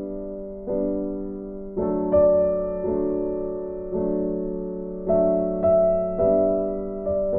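Background music: slow, soft piano chords, each struck and left to fade before the next.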